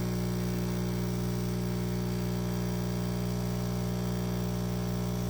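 L'OR Barista capsule coffee machine's pump running during a brew, a steady low electric hum that does not change. It makes a fair amount of noise but is not hideously bad.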